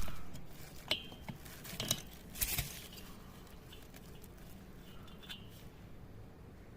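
A few light clinks and knocks of hard objects being handled, clustered in the first three seconds, then only faint background.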